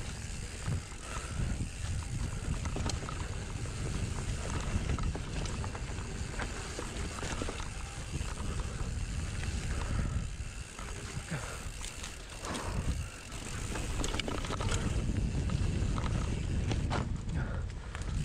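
Mountain bike riding a rough dirt trail: a steady low rumble from the tyres and wind on the microphone, with the bike rattling, clicking and knocking over bumps throughout.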